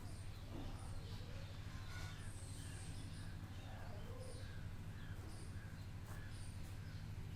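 Faint birds chirping and calling in the background, scattered short calls over a steady low hum.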